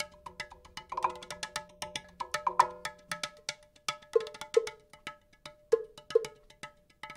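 Percussion music: quick, sharp strikes on small pitched percussion, several a second in a loose rhythm, with a low held tone underneath that stops about three seconds in.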